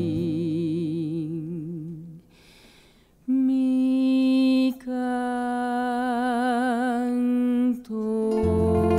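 A woman's singing voice holding notes with vibrato: one held note fades out, then after a brief pause she sings long unaccompanied held notes to open a waltz. Bass and plucked strings come in near the end.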